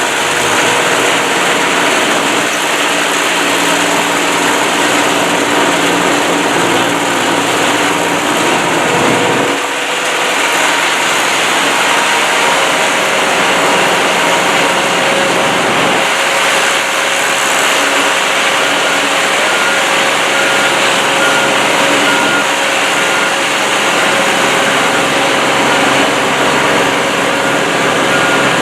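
Portable trommel screening plant and its conveyors running steadily, a loud, even machine noise with a few steady hums in it. Over the second half, a reversing alarm beeps faintly at an even pace.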